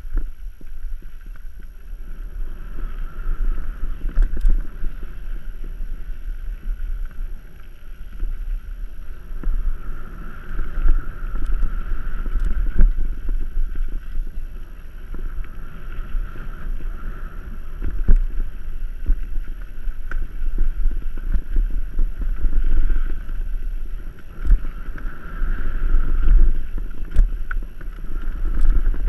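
Mountain bike descending a dirt singletrack at speed: wind buffeting the microphone with a steady low rumble and rushing noise, and an occasional sharp knock as the bike hits bumps.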